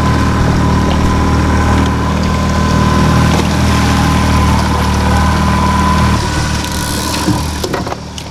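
Mercury four-stroke outboard running steadily at trolling speed, an even low hum with a thin whine above it. About six seconds in, the engine note changes and drops a little.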